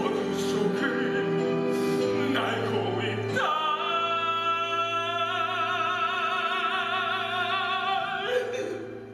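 Male singer performing a dramatic musical-theatre ballad with orchestral accompaniment, ending on a long held note with wide vibrato that stops a little before the end.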